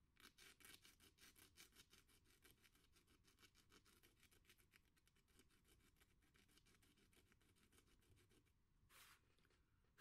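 Faint, rapid scratching of a nail tip over 180-grit sandpaper, about seven short strokes a second, scoring white road markings into the sandpaper; one longer scrape near the end.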